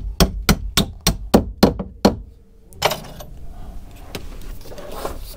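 Quick hammer blows, about five a second, on a threaded bar being driven through a wooden boat's frame and hull planking, stopping about two seconds in. A brief rustle and a few faint knocks follow.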